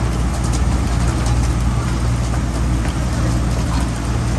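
Boat engine running steadily, a constant low hum under a haze of wind and water noise.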